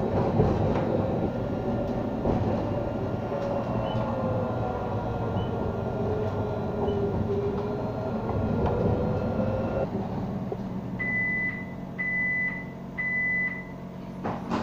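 Inside an Alstom Citadis tram on the move: steady running rumble with a motor whine that glides down and back up, until the noise drops suddenly about ten seconds in as the tram comes to a stop. Three even beeps follow, one a second, then a single knock near the end.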